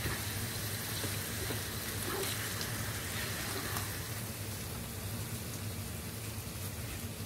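Shrimp paste (alamang bagoong) and pork sizzling steadily as they fry in a nonstick pan, with light scraping as a plastic spatula stirs them.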